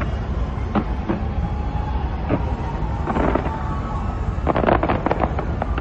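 Fireworks going off: scattered sharp bangs over a continuous low rumble, then a quick run of crackling reports about four and a half seconds in.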